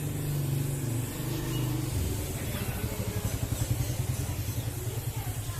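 A motor or engine running steadily with a fast, even throb.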